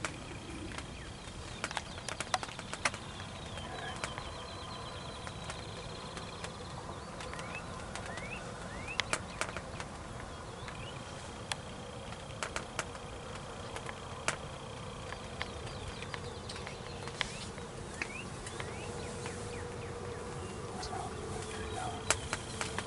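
Spring field ambience: distant songbirds calling, with short chirping glides and thin steady trills, over a faint outdoor hum and scattered sharp clicks.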